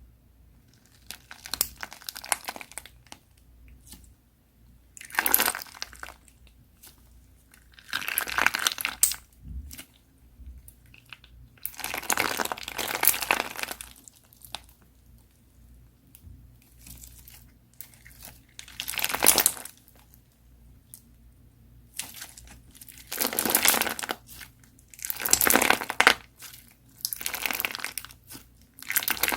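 Crunchy slime being squeezed and pressed, crackling and popping in repeated bursts a second or two long, with short pauses between them.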